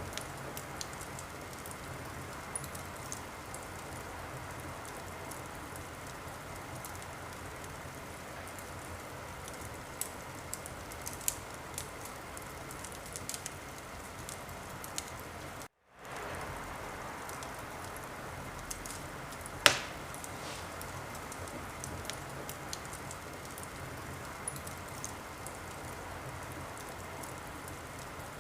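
Wood fire burning in a fireplace: a steady hiss with scattered crackles and pops, one much louder pop about twenty seconds in. The sound cuts out completely for a moment a little past halfway.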